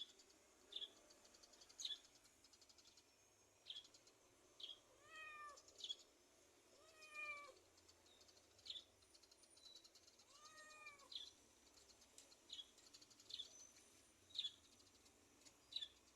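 Domestic cat meowing three times, each call rising then falling in pitch. Short, high chirps sound repeatedly throughout.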